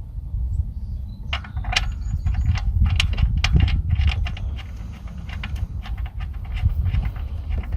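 Irregular metallic clinks and scrapes of a wrench being worked against an overtight oil-change fitting, over a steady low rumble of handling noise.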